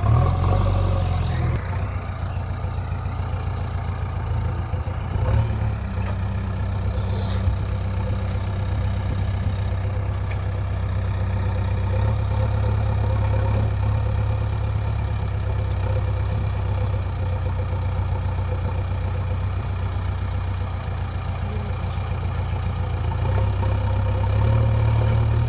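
JCB 3DX backhoe loader's diesel engine running steadily while working, growing louder about twelve seconds in and again near the end.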